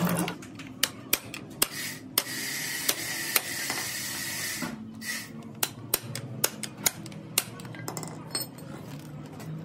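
Irregular light metal clinks and knocks from a steel tractor brake band being handled and worked on a concrete floor after its old lining has been stripped off. A steady hiss runs for a couple of seconds in the middle.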